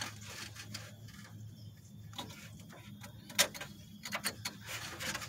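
Plastic zip ties clicking and rattling as they are threaded through and pulled tight. The clicks come in scattered bursts, and one sharp click about three and a half seconds in is the loudest.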